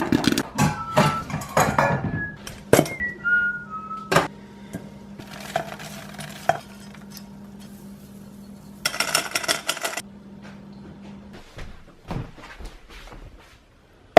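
Pots, pans and utensils clattering while popcorn is made on a stovetop: a quick run of knocks and clinks at first, then scattered knocks and a short scraping, rattling burst, over a steady low hum.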